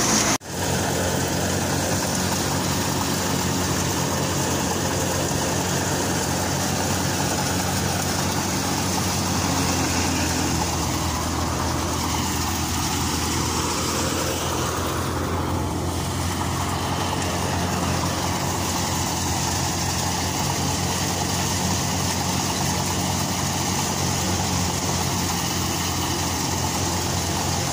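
Mung bean threshing machine and the engine driving it running at a steady speed, a continuous mechanical hum with an unchanging engine note. The sound drops out for an instant just after the start, then carries on unchanged.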